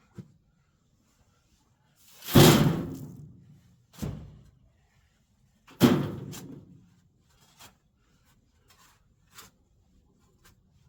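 Shovel work in a chicken pen's compost: two heavy thuds about three and a half seconds apart as shovel loads hit, with a lighter knock between them and a few small taps afterwards.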